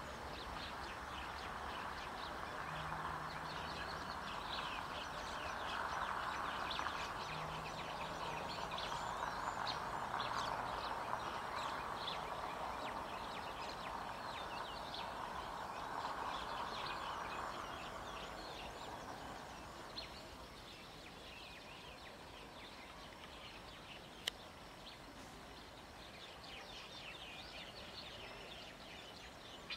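Many small birds chirping and twittering over a steady outdoor hiss; the hiss eases off about two-thirds of the way through, and there is a single sharp click near the end.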